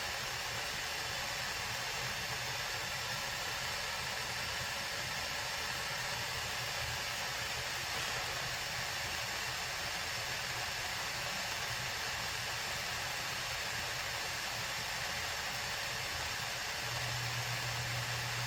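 Steady, even hiss, with a low hum coming in near the end.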